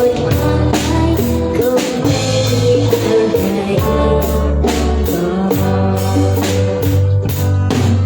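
Live band playing a song: drum kit keeping a steady beat under held bass notes and guitar, with a singer.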